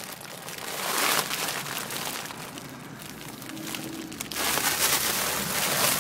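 Rushing, rustling noise of breath and a rubber helium balloon held at the mouth, as helium is drawn in from it. It swells about a second in and again for the last second and a half.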